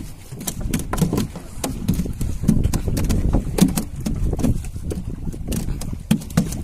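Low rumble on a small fishing boat at sea, with frequent sharp knocks and taps throughout.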